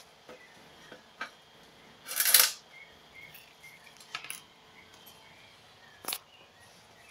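Handling noises: a few scattered clicks, a short loud rustle about two seconds in, and a sharp click about six seconds in.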